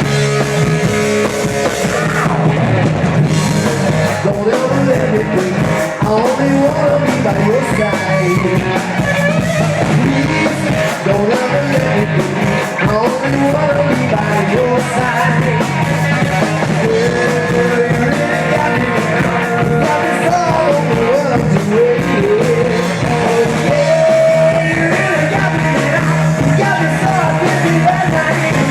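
Live rock band playing with a singer, loud electric guitar and a steady low bass note, at a sound check.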